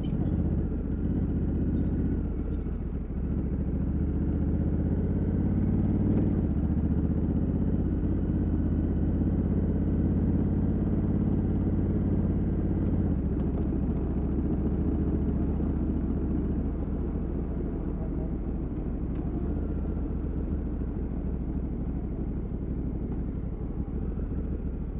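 Honda Africa Twin 1100 DCT's parallel-twin engine through its stock exhaust, running steadily at road speed. The engine note changes a few times, about three, six and thirteen seconds in.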